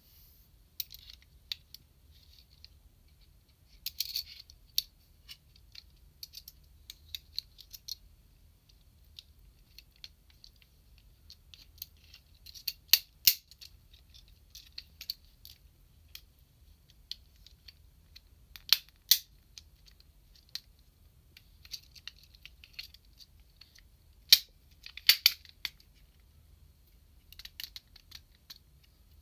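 Plastic parts of an SMP Gaoking model robot clicking, rattling and snapping as they are handled and pulled apart, with a few sharper snaps in the second half.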